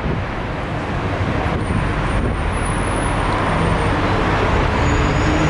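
Steady road traffic noise and a bus running, heard from the open top deck of a moving sightseeing bus: a low rumble with street noise over it that grows slightly louder.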